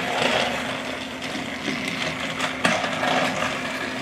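Battery-powered TrackMaster toy engines running along plastic track: a steady whir of their small electric motors with the clatter of the wheels on the track, and one click about two and a half seconds in.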